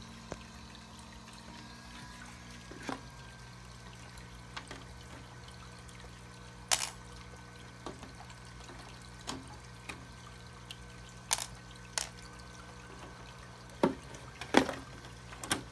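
Scattered sharp clicks and taps of a plastic RC truck body shell being handled and fitted onto its chassis, about a dozen spread through, over a steady low hum and faint hiss.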